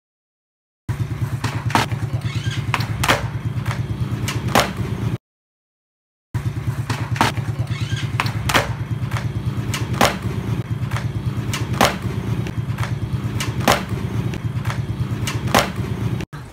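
Skateboard wheels rolling on rough concrete with a steady low rumble, and a sharp click every second or two. The sound cuts out to silence twice, briefly.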